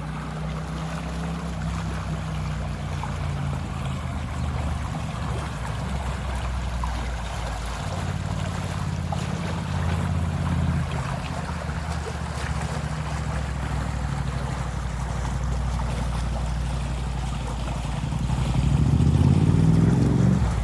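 Wind buffeting the microphone: a steady low rumble that swells louder near the end.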